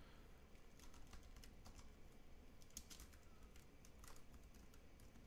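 Faint computer keyboard typing: scattered, irregular keystroke clicks as a command is deleted and retyped.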